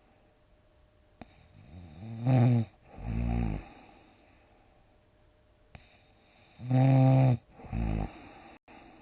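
Loud snoring in two breath cycles. Each cycle is a strong pitched snore of about half a second, followed by a shorter, lower snore, with quiet breathing between the cycles.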